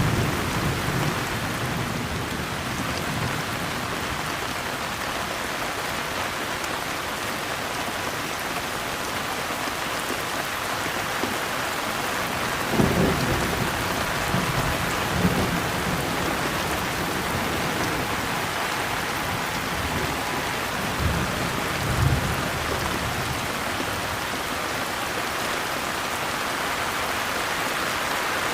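Steady rain falling, with low rumbles of thunder at the start, twice about halfway through, and once more near the end.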